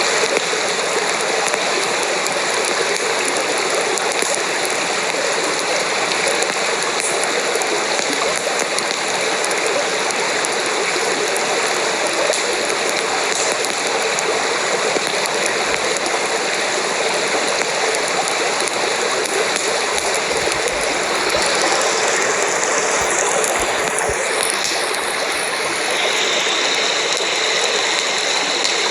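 Steady rush of flowing water, like a forest stream running.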